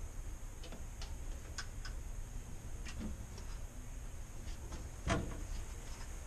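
Scattered small clicks and taps from an oven door's hinges being worked and lifted during door removal, with one louder knock about five seconds in, over a low steady hum.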